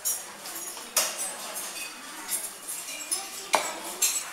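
Metal fork clinking against ceramic plates while eating: several sharp clinks with a brief ringing, the loudest about a second in and two more near the end.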